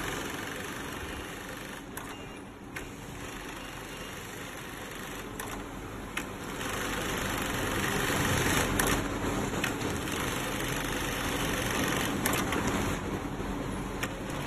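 YL-F300GH industrial FIBC bulk-bag sewing machine running as it stitches heavy woven fabric, a steady mechanical noise that grows louder about six and a half seconds in, with a few sharp clicks along the way.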